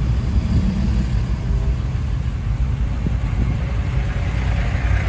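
Steady low rumble of road traffic heard from inside a car, with semi trucks close on both sides.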